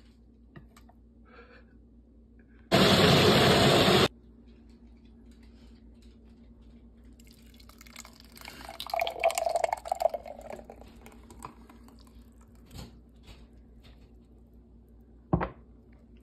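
A personal blender runs once for about a second and a half, a loud whir that starts and stops abruptly. Later, thick blended smoothie is poured from the blender cup into a mug.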